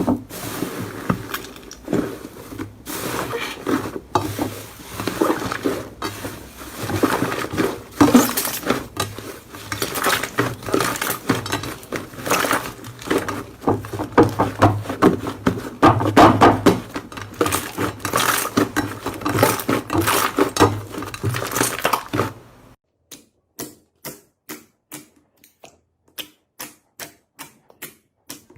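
Slime being squished and kneaded by hand, a dense run of crackling, squelching pops. Near the end this gives way to a string of sharp separate clicks, about three a second.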